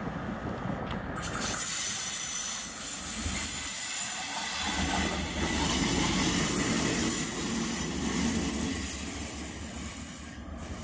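KiwiRail DL class diesel-electric locomotive passing close by running light, its engine rumbling under loud steel-wheel-on-rail noise. The noise swells about a second and a half in as the locomotive reaches the camera, and the high hiss drops away near the end.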